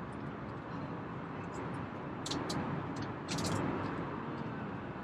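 Steady roar of an airliner cabin in flight, the engines and airflow making an even rushing noise, with a few short, faint high clicks about two to three and a half seconds in.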